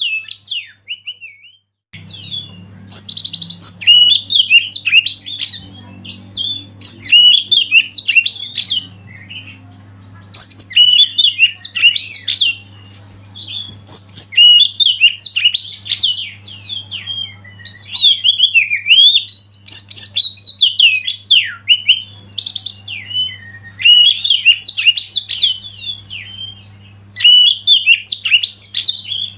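Oriental magpie-robin (kacer) singing a loud, varied song of sweeping, warbling whistled phrases, delivered in bursts of a few seconds with short pauses between, over a steady low hum.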